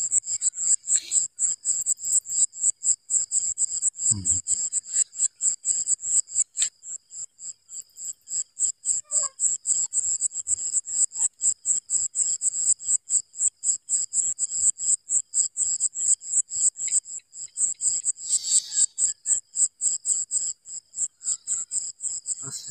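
A cricket chirping steadily at night, a high-pitched, regular chirp about four times a second.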